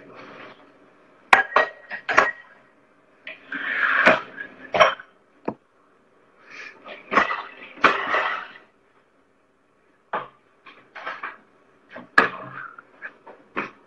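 A dishwasher being loaded: plates and cutlery clinking and knocking against each other and the racks, in scattered bursts with short pauses between.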